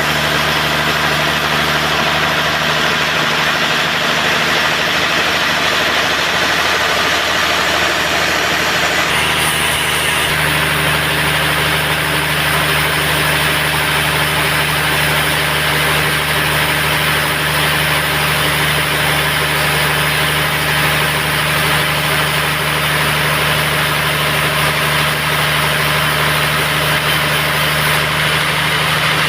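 Band sawmill running steadily, a machine drone with a dense hiss over it; the high part of the sound changes about nine seconds in.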